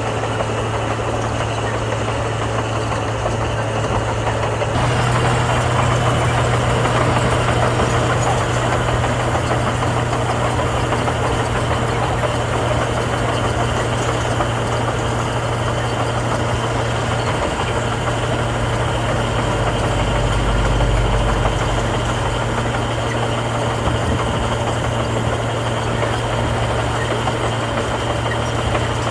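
Heavy diesel engine of earthmoving machinery running steadily. It picks up a little in pitch and level about five seconds in, with a brief low surge later on.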